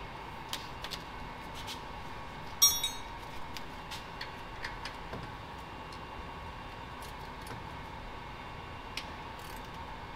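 Hand tools and metal parts clicking and tapping against the engine while the turbo and exhaust manifold are fitted, with one sharper ringing metal clink a few seconds in. A steady hum runs underneath.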